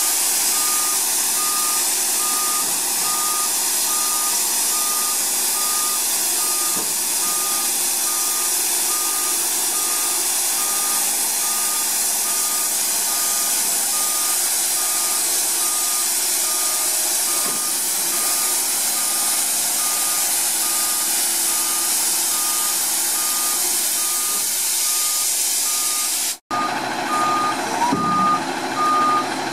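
Garbage truck's backup alarm beeping steadily at an even rate, over a constant rushing noise from the truck. The sound drops out for a moment near the end, then the beeping carries on.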